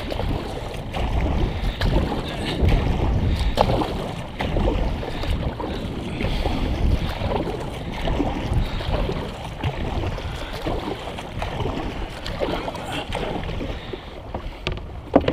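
Kayak being paddled on calm sea: a double-bladed paddle dipping and pulling through the water, with water washing along the plastic hull and wind buffeting the microphone.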